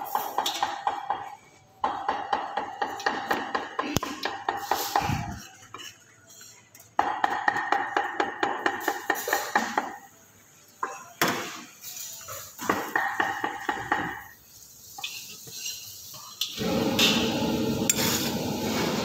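Metal cookware clattering: a utensil strikes and scrapes against a pan in quick runs of strokes with a ringing metallic tone, broken by short pauses. Near the end a steady rushing noise takes over.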